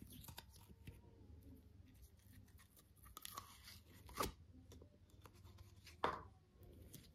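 Slime being handled, making soft crackles and small clicks, with two louder pops or squelches about four and six seconds in.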